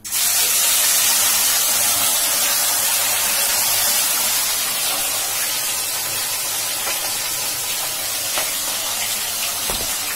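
Pieces of marinated fish sizzling as they fry in hot oil in a kadai: a loud, steady hiss that starts suddenly and eases a little after the first few seconds.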